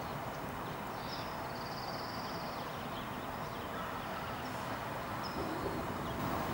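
Steady outdoor background noise with faint, high-pitched chirps of small birds, including one longer trill about a second in.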